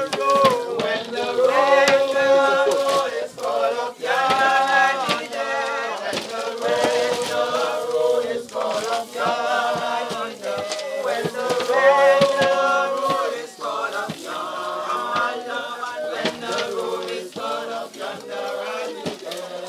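A group of voices singing a gospel hymn slowly, with long held notes.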